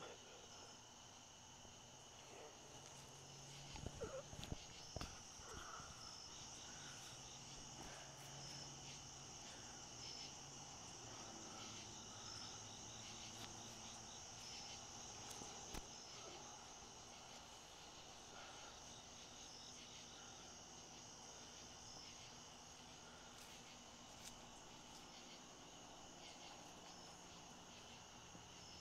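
Crickets chirping at night: a steady high trill with one chirp repeating about every second and a half. A few brief rustles and soft knocks about four to six seconds in.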